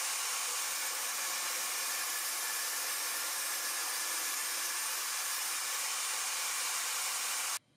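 DeWALT table saw running steadily while plywood is fed through it on a crosscut sled, a constant motor-and-blade whir that cuts off abruptly near the end.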